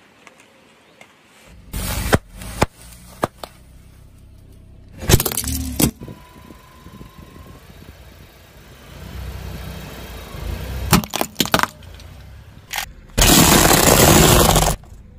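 Car tyre slowly rolling over and crushing a series of objects one after another, including a bar of soap and a toy maraca: a string of separate cracks and crunches. The longest and loudest is a crackling crunch near the end.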